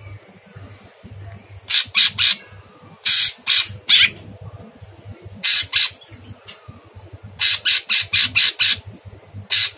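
Caged male leafbird (cucak cungkok) giving loud, harsh, grating calls in short groups: three quick notes, then two longer ones, a single note, and a rapid run of about six near the end.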